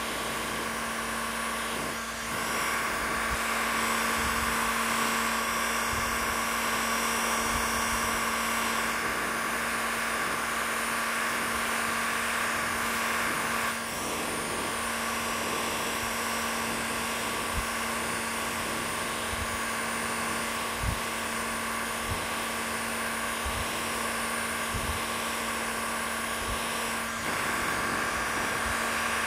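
Cordless battery heat gun running steadily, its fan motor blowing hot air onto a chainsaw crankcase to heat the crank bearing seat before the bearing is knocked out. A steady whir with a constant hum.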